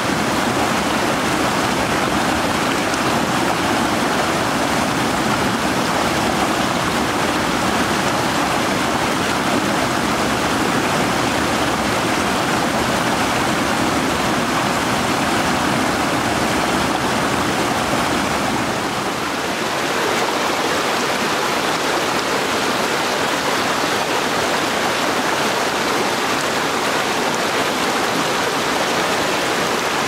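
Forest mountain creek rushing and splashing over small rocky cascades, a steady rush of water. About two-thirds of the way through its tone changes slightly.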